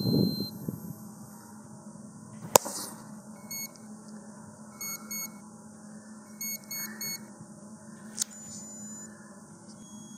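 A sharp, loud pop about two and a half seconds in as a black powder substitute ejection charge fires from its small canister, with a smaller sharp crack about eight seconds in. Between them come short high electronic beeps in small groups.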